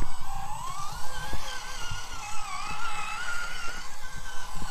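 Electric drive motor and gearbox of an RC scale trial truck whining, the pitch rising and falling as the throttle is worked, with a few low knocks mixed in.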